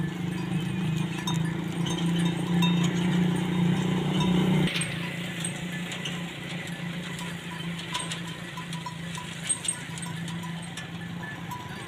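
Small bells on a flock of sheep and goats clinking here and there as the animals walk. Under them runs a steady low hum that drops away about five seconds in.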